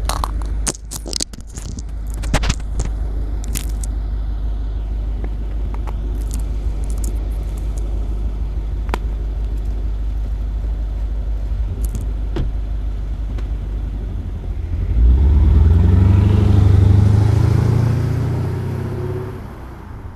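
BMW F10 550xi's twin-turbo V8 running through a custom 3-inch exhaust: a steady low idle, then about fifteen seconds in it climbs to a louder, deeper run for a few seconds before falling away near the end. Knocks and scrapes in the first few seconds as the camera is set down in the snow.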